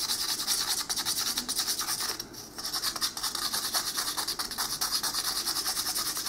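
Fine sandpaper rubbed in quick back-and-forth strokes over a small soldered brass fishing lure, cleaning up the solder. The scratching pauses briefly a little over two seconds in, then carries on.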